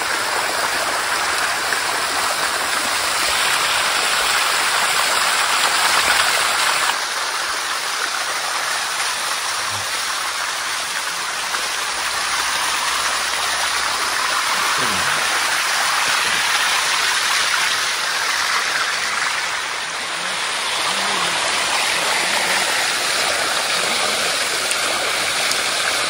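Shallow water rushing and splashing down a small waterfall over calcium-carbonate rock, close to the microphone: a steady, loud rush that shifts slightly in tone about seven seconds in.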